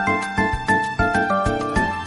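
LG phone ringtone: a bright electronic melody of short stepping notes over a steady beat.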